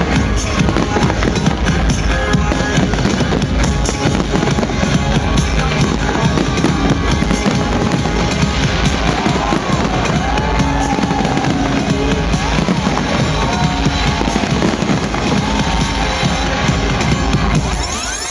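Fireworks bursting and crackling continuously over loud music with a heavy bass beat.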